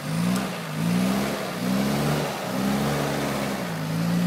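Land Rover Defender's engine revving up and down in several surges as the 4x4 crawls over steep, rough off-road ground, then holding a steady pitch near the end.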